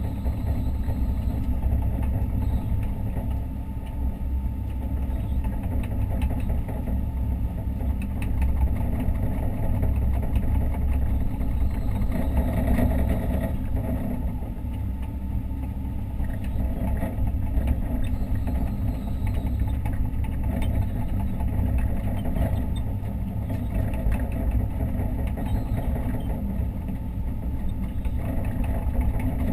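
Hitachi Zaxis 130 excavator's diesel engine running steadily, heard from inside the operator's cab, swelling a little a few times.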